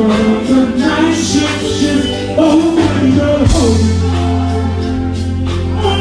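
Live dancehall music played loud over a sound system: a voice singing over a steady, heavy bass line.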